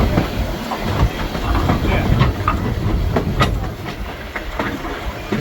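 Passenger railroad car rolling along the track, heard from on board: a steady low rumble with irregular clicks and knocks from the wheels and couplings, and brief high squeaks.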